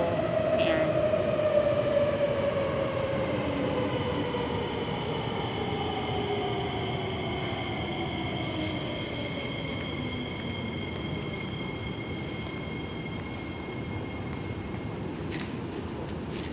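MRT train's electric traction motors whining over the rumble of the wheels, the whine falling steadily in pitch as the train brakes into the station, with two steady high tones above it.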